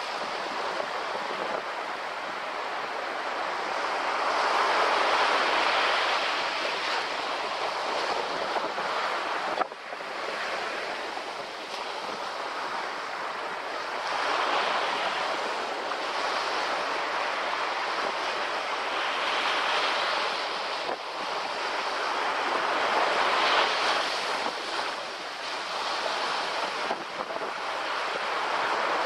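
Small ocean waves lapping onto a sandy beach and washing back, the surf swelling and easing every few seconds.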